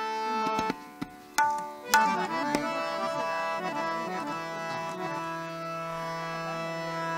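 Harmonium playing sustained notes and chords, with a few sharp tabla strokes about one and a half to two and a half seconds in.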